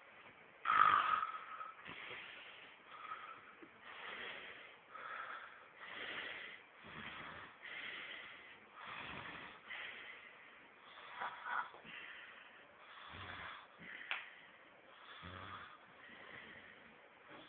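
A man snoring: noisy breaths in and out, one about every second. The loudest comes about a second in.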